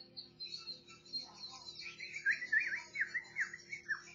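Birds chirping: a steady run of quick twitters, joined about two seconds in by louder, quick downward-swooping chirps.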